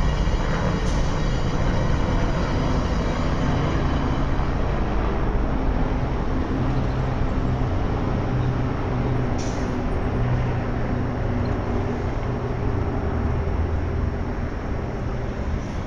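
Angels Flight funicular car running up its inclined rail track, a steady rumble mixed with city traffic, with a faint high whine in the first few seconds and a single click about halfway through.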